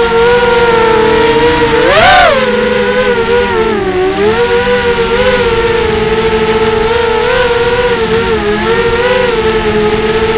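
FPV drone's electric motors and propellers whining, the pitch rising and falling with the throttle. A sharp throttle surge about two seconds in brings a brief loud rush, and the pitch dips about four seconds in.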